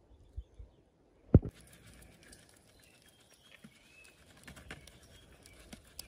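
A single sharp knock about a second and a half in, among softer scattered taps and clicks. Right after it a faint steady outdoor hiss sets in, with a few short high chirps.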